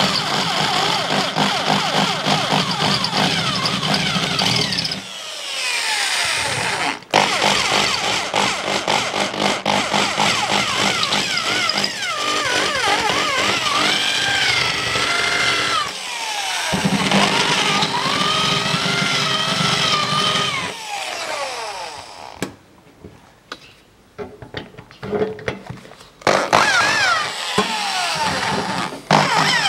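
Electric drill with an 8 mm bit drilling out aluminium blind rivets, its motor whining and sliding up and down in pitch as the trigger is squeezed and eased, stopping briefly several times. The rivet's core holds the bit back from going straight through.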